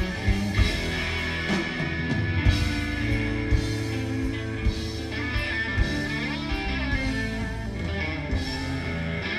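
Live rock band playing, heard on an audience tape: electric guitars and pedal steel over bass, with drum hits.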